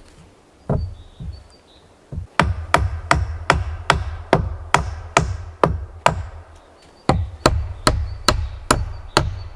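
Hand tool striking wood repeatedly, about two to three blows a second, in two runs broken by a short pause about six seconds in, after a single blow near the start.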